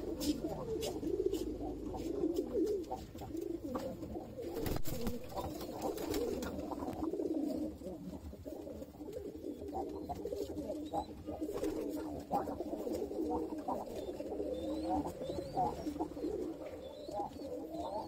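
Domestic pigeons cooing, a continuous low wavering coo with a few clicks early on and a single sharp knock about five seconds in; faint high chirps come in during the second half.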